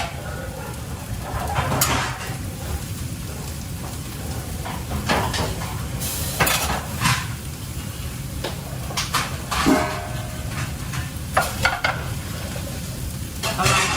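Food sizzling in a pan while a metal utensil stirs and scrapes it, with irregular clinks and knocks against the pan.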